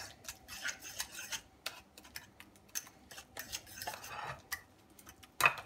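Metal fork scraping and tapping on a plate as mashed banana and spices are stirred together: a run of short, irregular scrapes and clicks, with one louder clack near the end.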